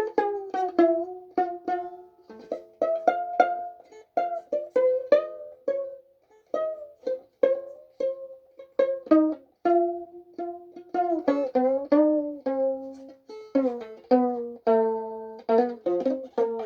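A violin played as a slow, halting melody of single plucked notes, each with a sharp start and a quick fade. Toward the end some notes sound two at a time.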